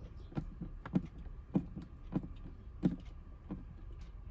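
Footsteps of a person walking at a steady pace, a dull thump about every 0.6 seconds.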